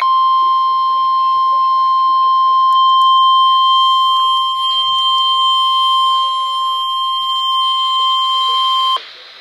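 NOAA Weather Radio warning alarm tone: one steady, loud, high tone near 1 kHz (the 1050 Hz alert tone) that is held for about nine seconds and cuts off suddenly. It signals that a warning, here a severe thunderstorm warning, is about to be read.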